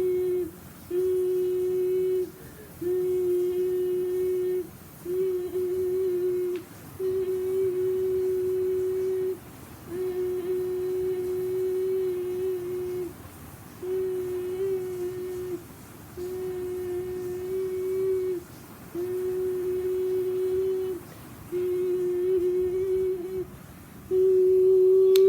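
A person humming one steady note over and over, each held for one to two and a half seconds with short breaks between, the pitch wavering slightly now and then.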